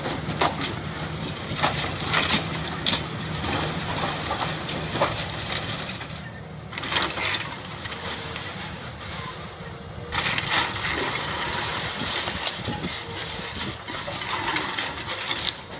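Brick masonry and roof tiles cracking, crunching and crashing down as a Caterpillar tracked excavator tears into an old barn, over the steady running of the excavator's diesel engine. The crashes come again and again, with a longer spell of falling debris from about ten seconds in.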